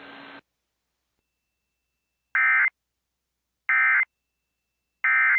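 Emergency Alert System end-of-message data bursts: three short, identical screechy digital tone bursts about 1.3 seconds apart, the EAS code that closes an alert or test message.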